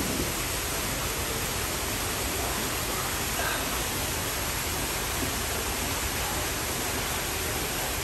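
Steady, even rushing hiss, with no distinct sounds standing out.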